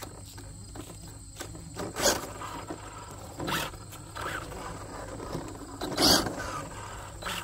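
Electric RC drag trucks' brushless motors whirring in short throttle bursts as the trucks drive off on asphalt. There are four bursts, the loudest about two seconds in and again about six seconds in.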